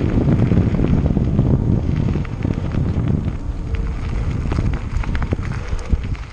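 Wind buffeting a helmet-mounted camera's microphone as a Cube Stereo Hybrid 160 mountain bike rolls over loose gravel, the tyres crunching with many small clicks and rattles.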